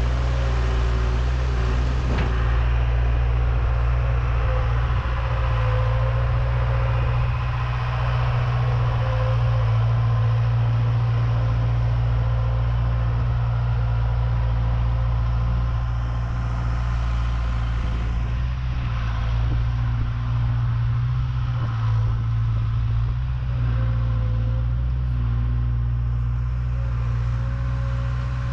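John Deere 270 skid steer's diesel engine running steadily, with a faint steady whine above it.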